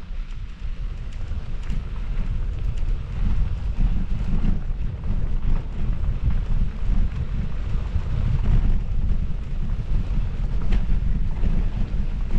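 Wind buffeting the microphone: a heavy, unsteady low rumble, with a few faint ticks and rattles now and then.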